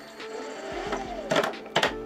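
Electric motor in a Toyota Prius transaxle whining as the throttle is applied, its pitch rising and then falling, with two sharp knocks near the end. The knocks are a jerky response that the builder thinks comes from applying throttle too fast, with the controller needing fine tuning.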